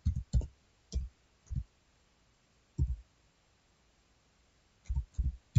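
Computer keyboard keys pressed one at a time while digits are typed: about ten short, dull taps in irregular clusters with pauses between them.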